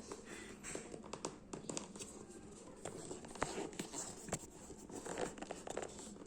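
Packaging being handled during a shoe unboxing: irregular rustling and crinkling with scattered light clicks and taps.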